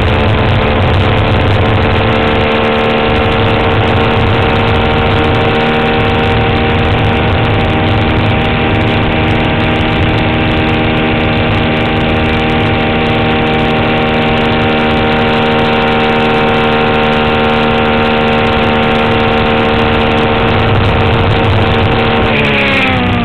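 Swift DB4 Toyota Atlantic race car's engine, heard from on board, running at high revs. Its pitch climbs slightly and then holds steady for a long stretch. Near the end the revs fall away sharply.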